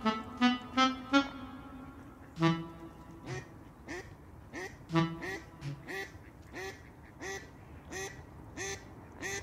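A few quick reedy notes on one pitch, then a slow run of short duck-like quacks, about one every two-thirds of a second, each rising a little in pitch and growing fainter toward the end.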